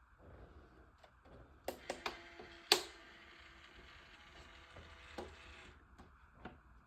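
A few sharp clicks and knocks of small model-kit parts being handled, the loudest a single snap almost three seconds in. A faint steady hum sits under them and cuts off suddenly near six seconds.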